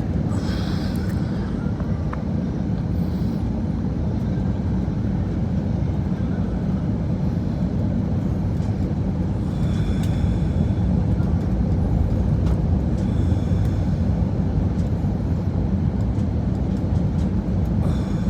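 Steady low roar of an airliner cabin during landing, with a few faint, brief higher-pitched sounds about a second in, around ten seconds and around thirteen seconds.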